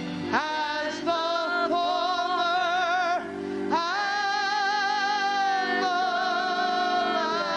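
Slow congregational worship singing, led by a woman's voice with a wide vibrato, holding long notes over steady sustained instrumental chords. There are two long phrases, each sliding up into its note, with a short breath between them about three seconds in.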